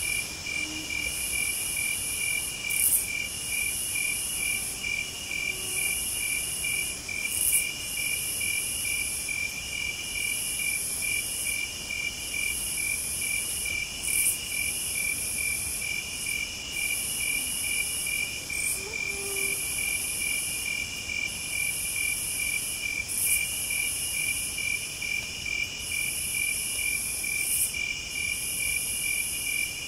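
Night chorus of crickets and other singing insects: one sings a fast, even run of pulses, another trills in stretches of a second or two, and a third, much higher and shriller, sings in phrases of about a second and a half with short gaps between.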